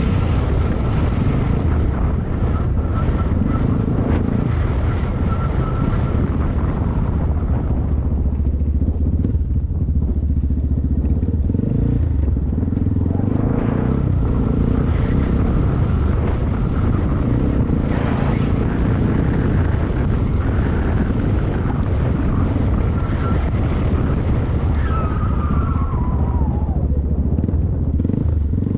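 Yamaha XT225's single-cylinder four-stroke engine running under a riding load, with the throttle opening and closing. The engine note eases for a few seconds about a third of the way through, then picks up again.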